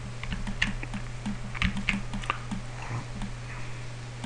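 Computer keyboard typing: uneven key clicks, about three a second, over a steady low electrical hum.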